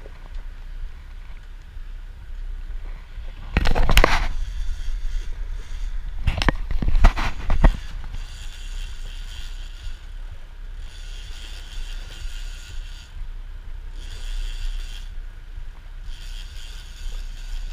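Sport-fishing boat under way at sea, its engine and wake making a steady low rumble, with two loud rushing bursts about four and seven seconds in. From about eight seconds a high rasping mechanical sound comes and goes in stretches of a second or two.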